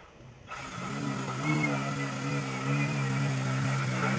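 Cordless string trimmer starting up about half a second in and then running with a steady hum while it cuts along the lawn edge.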